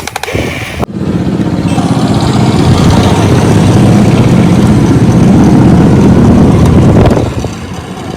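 RC excavator's motor and hydraulic pump running steadily under load. It starts about a second in and drops back sharply about seven seconds in.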